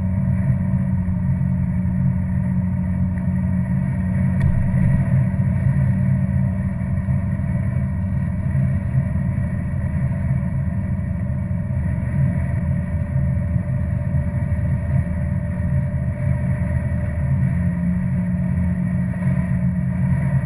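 Steady low engine and road rumble of a car driving at an even speed, heard from inside the cabin.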